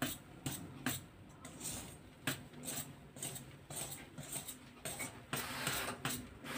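A hand utensil stirring and folding thick chocolate cake batter in a stainless steel bowl. It makes irregular clicks and scrapes against the metal, about two or three a second, with a longer scraping stretch near the end. The batter is being mixed gently so that it keeps its air.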